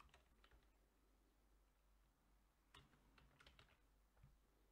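Faint computer keyboard typing: a few short runs of keystrokes with pauses between them.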